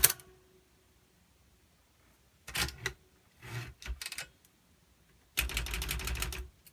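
We R Memory Keepers Typecast typewriter being typed on: bursts of rapid key strikes, a short one about two and a half seconds in, a softer one a second later, and a longer run of fast clacking near the end.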